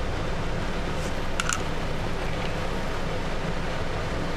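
Steady fan-like background hum, with two light clicks about a second and a half in from a plastic phone case and its metal magnet disc being handled.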